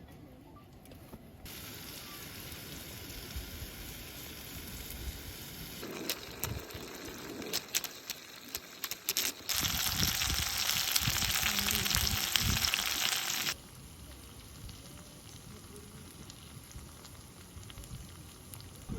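Food sizzling in a hot pan over a camp stove, with a few sharp clicks in the middle. The sizzle gets much louder for about four seconds, then cuts off suddenly to a softer hiss.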